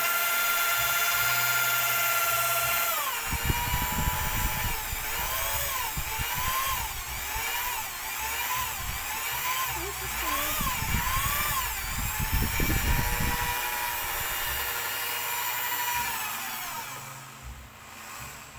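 Electric drill with a mixing paddle stirring a bucket of thick homemade liquid soap. Its whine drops in pitch about three seconds in and wavers up and down as the speed changes, then steadies and winds down to a stop near the end.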